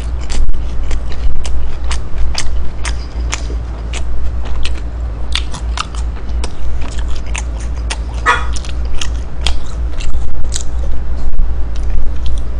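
Close-miked chewing of a mouthful of McDonald's beef snack wrap: a run of irregular wet mouth clicks and smacks, with a louder burst about eight seconds in, over a steady low hum.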